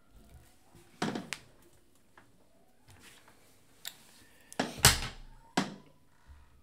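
Scattered sharp clicks and knocks of small hand tools, such as tweezers, being handled and set down on a phone-repair workbench, the loudest cluster a little under five seconds in.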